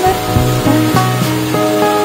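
Background music playing a simple tune over the steady whirr of a miniature electric mixer grinder running, grinding coconut chutney in its jar.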